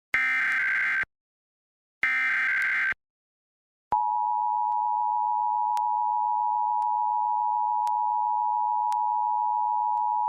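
Emergency Alert System tones: the last two of the three SAME header data bursts, each a harsh digital screech about a second long with a second of silence between. About four seconds in, the EAS two-tone attention signal (853 and 960 Hz together) begins and holds steady.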